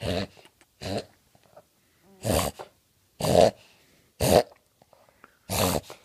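Dog reverse sneezing: six short, forceful pulls of air in through the nose, about one a second.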